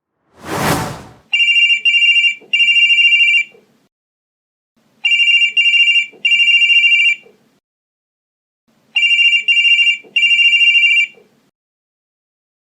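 A brief whoosh, then a telephone ringing with a trilled, high bell-like tone in a pattern of two short rings and a longer one, repeated three times about four seconds apart.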